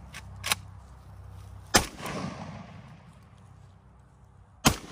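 Gunshots from a firearm, each a sharp report followed by a rolling echo. A fainter crack comes about half a second in, a loud shot a little under two seconds in, and another loud shot near the end.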